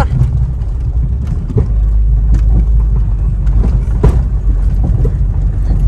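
A car driving slowly on a rough dirt road, heard from inside the cabin: a steady low rumble of engine and tyres, with a few short knocks.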